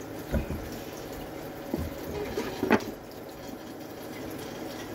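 Water running from a kitchen tap while dishes are handled and loaded into a dishwasher, with three short knocks of crockery; the one nearly three seconds in is the loudest.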